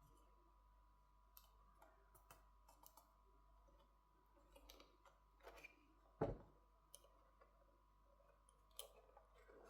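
Faint, scattered clicks and taps from handling the small internal parts of a Motorola Moto G60 phone while its new screen is connected, with one sharper tap about six seconds in. Under them runs a faint steady high hum.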